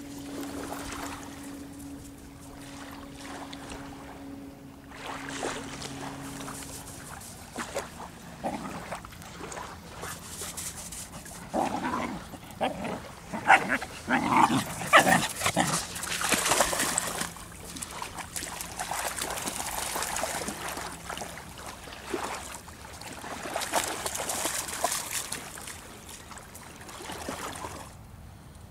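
Dogs playing, with a cluster of short barks and yips about halfway through as they wrestle. A steady low hum runs through the first several seconds.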